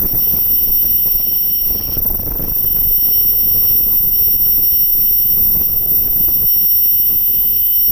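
Gemstone CNC drilling and engraving machine running, its spindle giving a steady high whine over a rough mechanical noise. One strand of the whine drops out for a moment about two seconds in.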